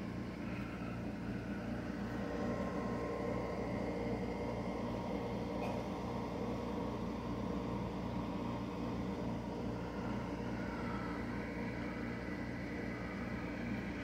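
LG window air conditioner running: a steady hum under an even rush of air.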